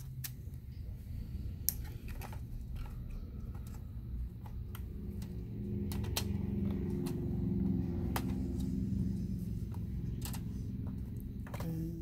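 Hands fitting a 2.5-inch SSD in a black sleeve into the aluminium Mac Mini case, with scattered light clicks and taps of plastic and metal. A low hum runs underneath, louder in the middle.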